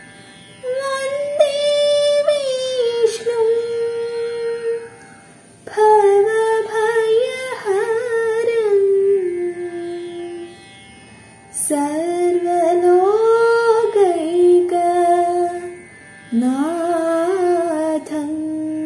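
A woman singing a slow prayer solo, in four long melodic phrases with sliding, ornamented notes and short pauses between them.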